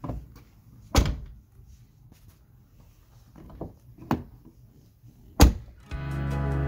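Mercedes-Benz car door being shut, a solid thunk about a second in and another, louder one about five and a half seconds in, with a few lighter knocks between. Music starts near the end.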